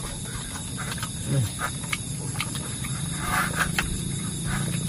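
Night chorus of insects and frogs: steady high trilling with low pulsing calls that grow stronger in the second half. Close by, short wet clicks of chewing and lip-smacking from people eating by hand.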